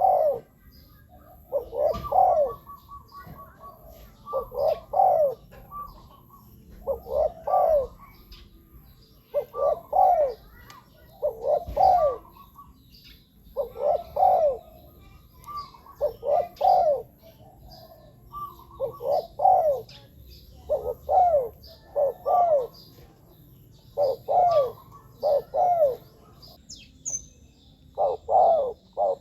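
Spotted dove cooing: its coo phrase repeated about every two to two and a half seconds, with a short pause near the end. Faint high chirps of small birds sound behind it.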